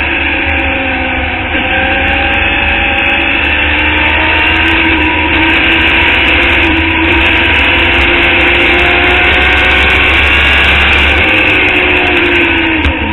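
Open-wheel formula race car's engine running hard at high revs, picked up by an on-board camera along with heavy wind rush. The engine note dips briefly about a second and a half in, then climbs slowly, and drops and picks up again right at the end.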